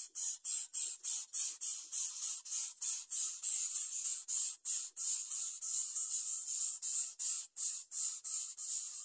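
Greater coucal nestlings begging for food: a rapid, unbroken series of short raspy hissing calls, about four to five a second.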